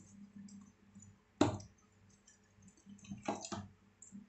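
Hands pulling apart and pressing a stiff dough in a steel bowl: soft squishes and a few dull thumps, the loudest about a second and a half in and two more close together around three seconds in.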